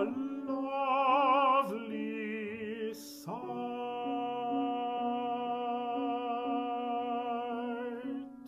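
Baritone singing the closing phrase of an art song with piano accompaniment, in full voice with wide vibrato, then one long held final note that stops shortly before the end.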